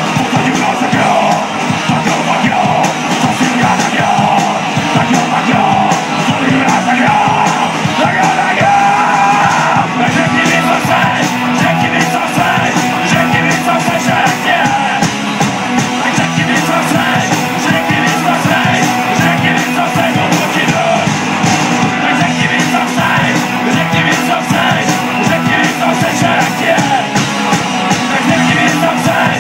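Punk rock band playing live: electric guitars and drums at full volume, with a singer at the microphone.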